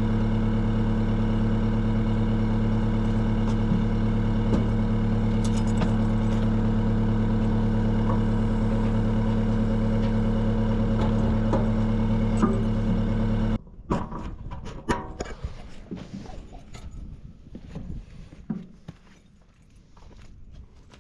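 Engine idling steadily, then cutting off abruptly about two-thirds of the way through, leaving scattered light knocks and clicks.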